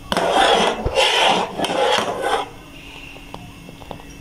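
A metal spoon scraping against the bottom and sides of an aluminium pot as thick custard is stirred: three long scrapes, then a few light clicks of the spoon.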